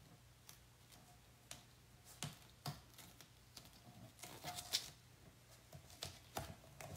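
Faint, irregular light clicks and taps with a short rustle about four seconds in, from hands handling and smoothing a plastic reusable stencil transfer on a chalkboard.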